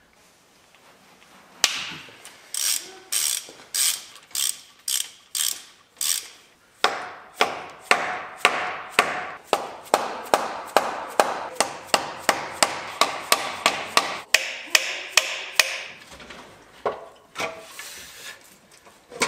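Hand ratchet wrench clicking in quick back-and-forth strokes as intake manifold bolts are loosened on a V8 engine. The clicks start about a second and a half in at about two a second, quicken to about three a second midway, and tail off near the end.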